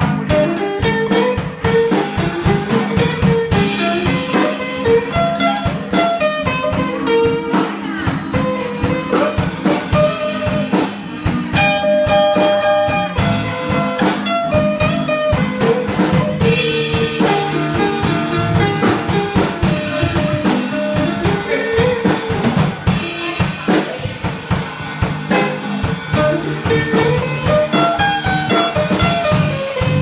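Live band playing: electric guitars with drums keeping a steady beat.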